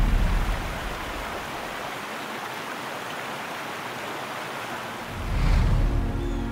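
River rapids rushing: a steady hiss of moving water. A deep rumble fades out in the first second and swells up again about five seconds in.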